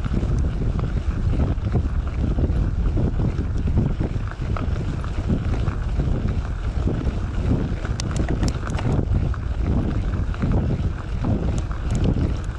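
Wind buffeting the microphone over the rumble of a Maxxis Minion DHR II 29x2.6 mountain bike tyre rolling on gravel. A few sharp clicks come about eight seconds in and again near the end.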